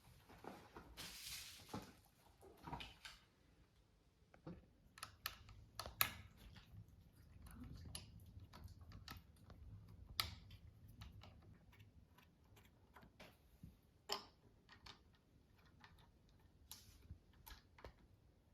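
Scattered light clicks and taps from hands working the electric scooter's controls and parts, irregular and sparse, the sharpest about ten and fourteen seconds in, over a faint low hum.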